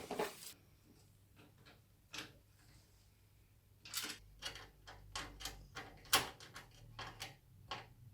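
Light clicks and knocks of computer hardware being handled as a motherboard is fitted into a PC case. The clicks are sparse at first and come thick and irregular from about four seconds in.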